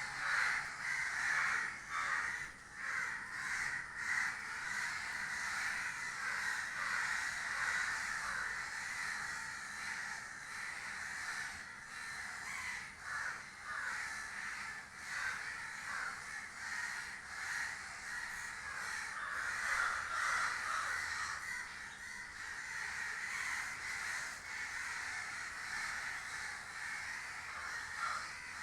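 A flock of crows cawing together, a dense continuous chorus of many overlapping calls with no break.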